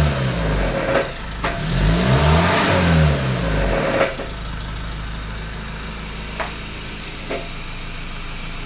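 2014 Ford Ranger 2.2-litre four-cylinder diesel engine: the revs fall away, rise and fall once more, then settle to a steady idle about four seconds in, with a few sharp clicks along the way. The engine is known to have a rattling noise of unknown cause.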